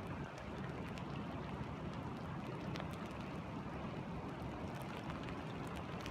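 Light rain falling, with scattered individual drops ticking over a steady rush of stream water.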